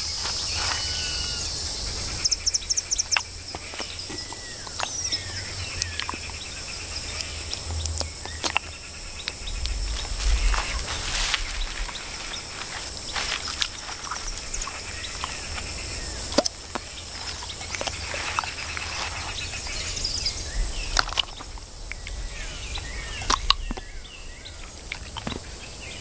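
Outdoor natural ambience: scattered short bird chirps over a steady high hiss, with sharp clicks and rustles throughout.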